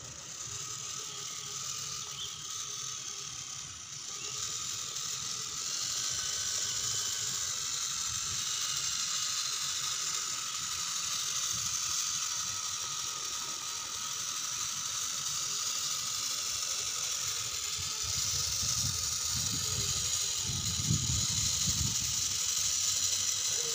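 Electric motor and gearbox of a 1/10-scale RC crawler whirring steadily as it drives, with a few low rumbles near the end.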